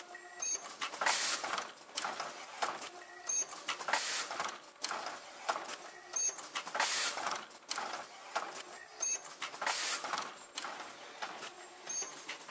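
Automatic headband and earloop mask folding machine running: fast mechanical clatter from its pneumatic cylinders and folding fingers, with short hisses of air. The work cycle repeats about every three seconds, each cycle marked by a brief high-pitched tone.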